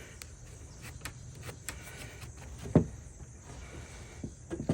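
Scattered light clicks, one sharper knock almost three seconds in, and a few more knocks near the end: parts and tools being handled during a suspension spindle teardown.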